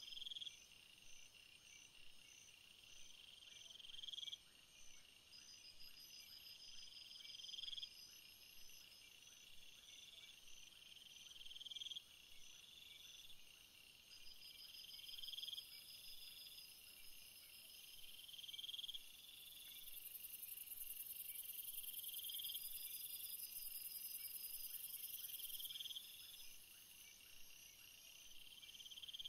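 Faint chorus of night insects. A cricket-like call swells and cuts off about every four seconds over steady, faster chirping, and a shrill high buzz joins in for several seconds past the middle.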